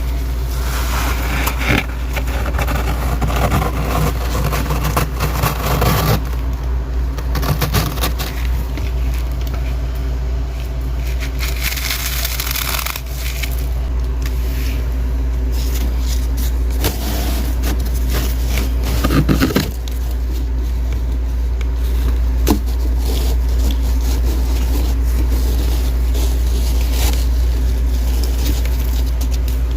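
Powdery freezer frost crunching and scraping in irregular crackly bursts over a steady low hum.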